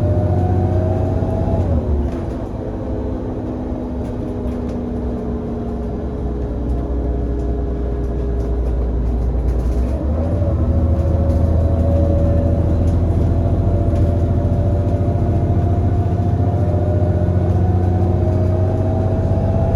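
Irisbus Citelis 18 articulated bus with an IVECO Cursor 8 six-cylinder CNG engine and ZF Ecomat automatic gearbox. The engine pulls under load, drops back about two seconds in with falling tones as power comes off, then comes back under load about ten seconds in with a slowly rising whine as the bus gathers speed.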